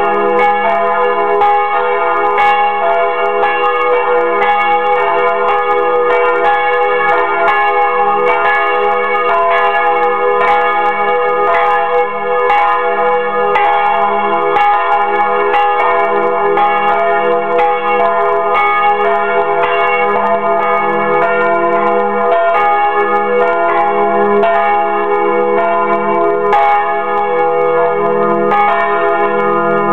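Two swinging church bells, a large Fremy bell and a small Bachert bell, ringing together up close inside the belfry, their strikes overlapping in a loud, continuous peal. It is the ringing-in of Sunday.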